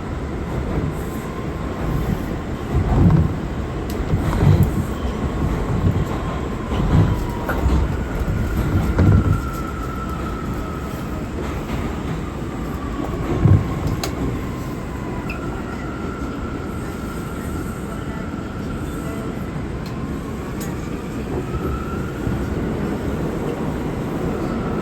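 An R179 New York City subway car running on the E line, heard from inside the car: a steady rumble of wheels on the rails with several heavy thumps over track joints in the first half. A whining tone slides down and then back up.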